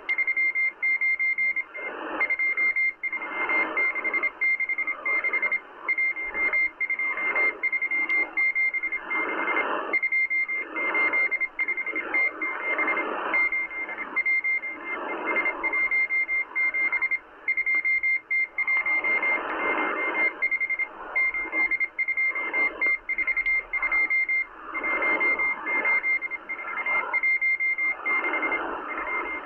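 Morse code from the M12 Russian spy station, heard through a Kenwood R-1000 shortwave receiver tuned to 14451 kHz: a steady tone of about 2 kHz keyed on and off with short gaps. It sits over hissing shortwave band noise that swells and fades every second or two.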